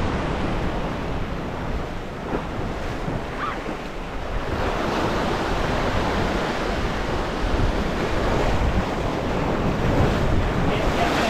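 Ocean surf washing against the rocks, with wind buffeting the microphone as a low rumble. The wash grows a little louder about halfway through.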